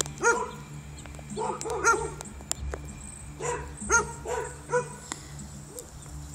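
A dog barking: about nine short, sharp barks in loose clusters, over a steady low hum.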